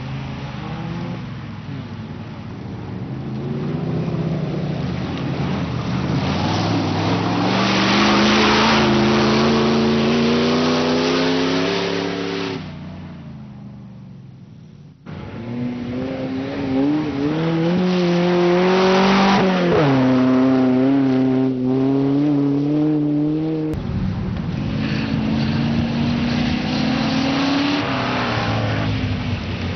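Off-road safari racing vehicles' engines revving hard as they drive across a muddy course, the pitch climbing again and again under acceleration. One engine fades away about halfway through; the sound then changes abruptly to another vehicle revving, and again near the end.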